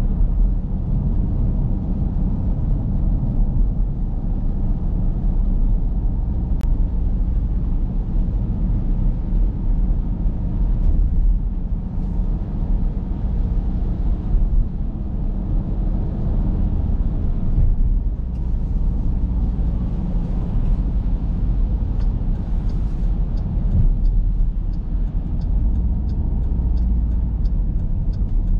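Inside the cabin of a Dodge Durango R/T, a 5.7-litre Hemi V8 SUV, slowing on wet pavement: a steady low rumble of engine and tyres on the wet road. A light, regular ticking, about two a second, starts near the end.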